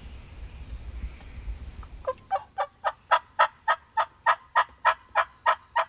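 A series of turkey yelps starting about two seconds in: some fifteen evenly spaced, raspy notes, about three or four a second, getting louder as they go.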